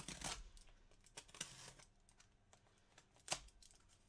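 Faint scattered clicks and short rustles of small objects being handled on a desk, with one sharper click about three seconds in.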